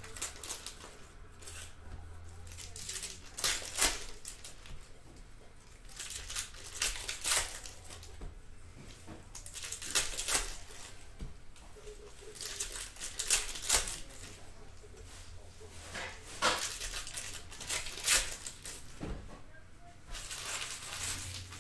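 Foil wrappers of Panini Select football card packs crinkling and tearing open, in short bursts every few seconds as pack after pack is ripped open.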